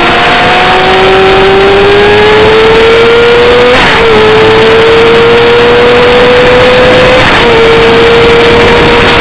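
Car engine accelerating hard, its pitch climbing steadily and dipping briefly at two upshifts about three and a half seconds apart, over a loud rushing noise.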